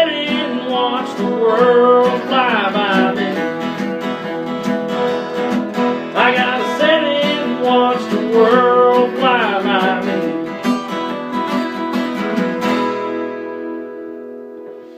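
Acoustic country music: strummed acoustic guitar with a gliding melody line over it. About two seconds before the end the playing stops on a final chord that rings out and fades away.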